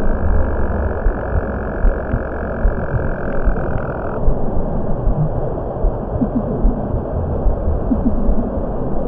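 Steady ambient drone: a dense low rumbling hiss with irregular low throbbing pulses underneath. A brighter layer of hiss on top cuts off suddenly about four seconds in.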